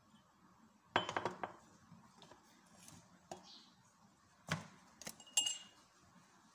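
Glass and metal kitchenware being handled and set down: a few sharp knocks about a second in, then scattered clinks, one ringing clink near the end.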